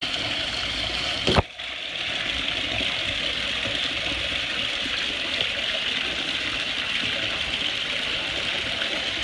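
Steady rushing of water, with a sharp click about a second and a half in, after which the water sound briefly drops away before it resumes.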